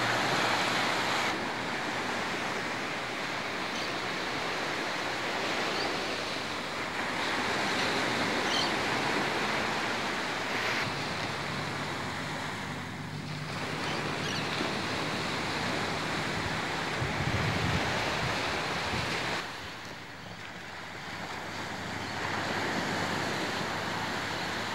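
Wind buffeting the camcorder microphone over the wash of waves and surf on open water. A low steady hum joins in for several seconds in the middle.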